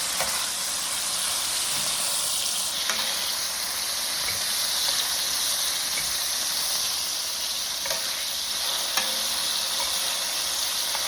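Tri-tip steaks searing in a hot stainless steel pan, a steady sizzle with a few faint clicks.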